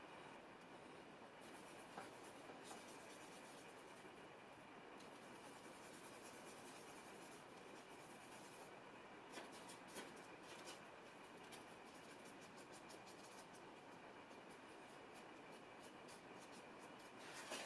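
Faint scratching and rubbing of a flat hog-bristle brush working oil paint on the palette and on paper, over a low steady hiss. A few strokes stand out, about two seconds in, near the middle and at the end.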